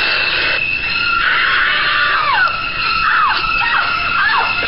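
A young woman's loud, sustained high-pitched scream, with a run of short falling wails over its second half.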